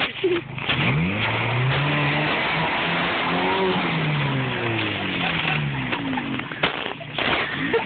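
Jeep YJ's engine revving up and falling back several times as it pushes through mud, over a steady rushing noise, with a few sharp knocks.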